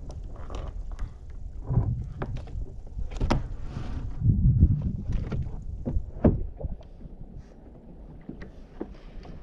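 Irregular knocks, clunks and rubbing on a fishing kayak's hull, with the heaviest clunks about halfway through, over a low rumble that eases near the end.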